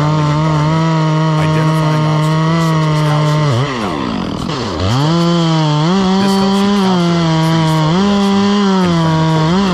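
Chainsaw running at high revs. About three and a half seconds in, its pitch drops steeply and climbs back within about a second. It then steps up and down between two speeds.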